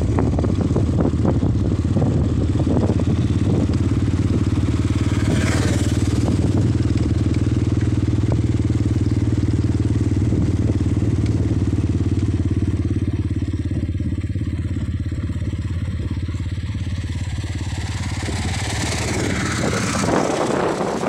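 Motorcycle engine running at a steady speed while riding, a constant low hum, with wind rushing over the microphone growing louder near the end.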